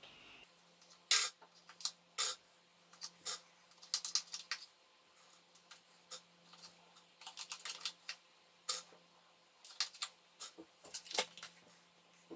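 A butter knife clicking and tapping against a plastic butter tub and the rim of a bowl as butter is scooped out. The sharp clicks come irregularly, a few at a time, with short pauses between.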